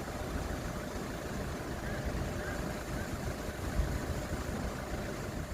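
Wind buffeting the microphone: a low, gusty noise that swells and dips unevenly.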